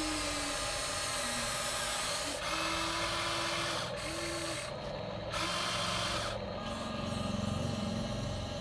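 Electric motors and gearing of a Huina 1953 RC excavator whining steadily as it works, the pitch stepping up and down every second or two as different functions start and stop.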